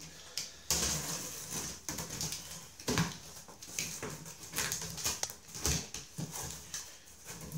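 Utility knife slicing through packing tape on a cardboard box in a series of scraping strokes, with knocks of the box and cardboard flaps being pulled open.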